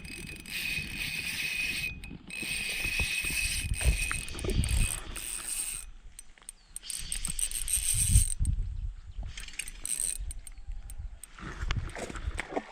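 Fishing reel being wound in, a mechanical whirring with a ratchet-like clicking that stops and starts.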